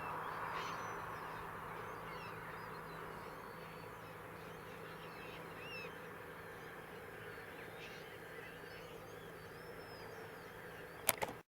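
A flock of gulls calling, many short overlapping cries, over the steady hum of a tractor engine that slowly fades. There is a sharp click just before the sound cuts off.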